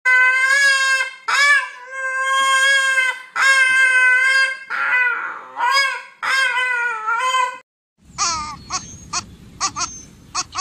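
An animal's loud, long cries, each held on one pitch for up to a second or two, about six in a row. After a sudden cut near the end, a different animal gives short, high, chirping calls over background hiss.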